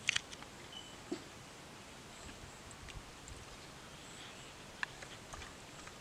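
A few sharp slaps and taps from a small freshly caught fish flapping on the line and being handled. The loudest come just at the start, with single ones about a second in and near the end. A faint outdoor background runs underneath, with one short high chirp under a second in.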